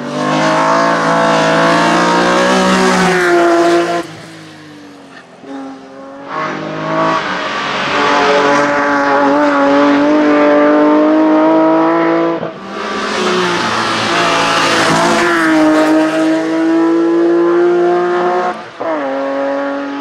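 3-litre BMW E30 hillclimb race car at full throttle, the engine revving hard with its pitch climbing and falling as it shifts and brakes for the bends. The sound breaks off abruptly and comes back several times, and is much quieter for a couple of seconds about four seconds in.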